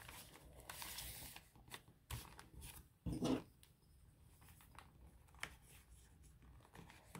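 Faint rustling of paper pages and a paper template being handled and shifted, with a few soft ticks and taps and one brief louder sound about three seconds in.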